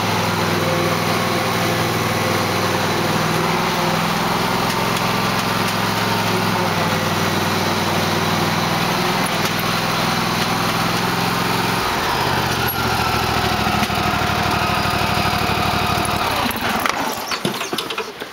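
Small gasoline engine running steadily. It changes to a different running note about two-thirds of the way through, then is shut off and dies away near the end, followed by a few knocks.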